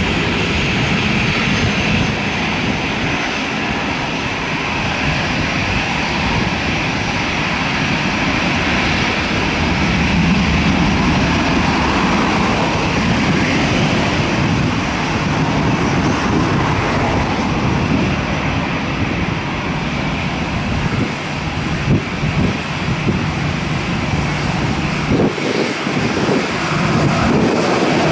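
Airbus A319-111's CFM56 turbofans running steadily at low taxi thrust as the airliner taxis and lines up on the runway. A few brief low thumps come after about twenty seconds.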